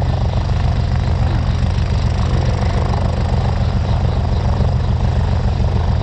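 Helicopter running on the ground, its tail rotor turning: a steady, loud engine and rotor drone with a fast, even pulsing low down.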